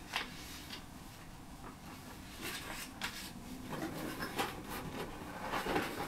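Paper rustling as a bundle of old letters and envelopes is shuffled through by hand, with a sharp tick right at the start and busier handling in the second half.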